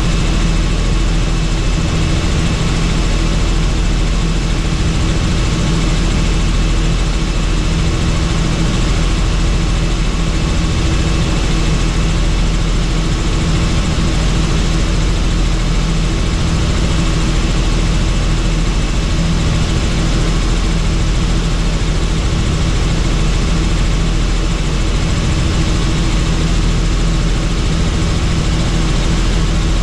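Helicopter in flight: steady rotor and engine noise, a loud, even drone with a low throb underneath.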